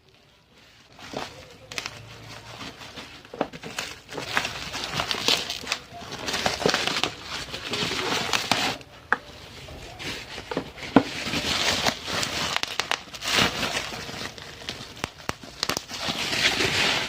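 Packaging being handled and opened: irregular crinkling and rustling in bursts, with a few sharp clicks and tearing sounds.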